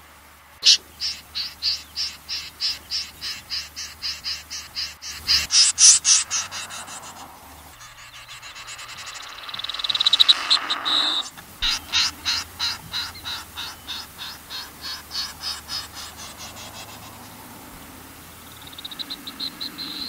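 Recorded lure call of a snipe-type wading bird: long series of sharp, evenly repeated notes about three to four a second, loudest around six seconds in, then a rapid buzzy trill near ten seconds, then another series of notes that fades out, with a quick run of notes at the very end.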